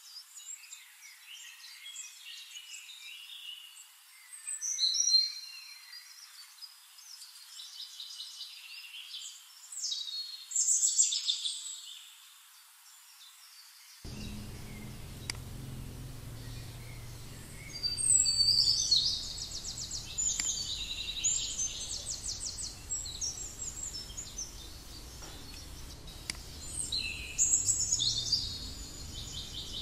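Birds singing and chirping in quick trills, in louder spells every few seconds, over a faint hiss. A low background rumble comes in suddenly about halfway through.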